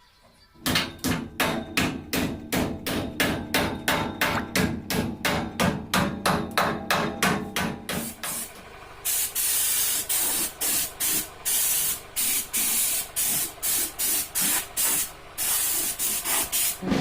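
Hammer blows struck in a fast, even rhythm, about three a second. From about halfway on they come about twice a second, each with a hiss.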